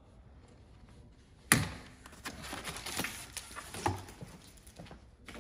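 A sharp snap about a second and a half in as snips cut through a cable tie. It is followed by a couple of seconds of plastic wrap and cardboard packaging rustling, with small knocks, as the wrapped wheel is pulled free of the box.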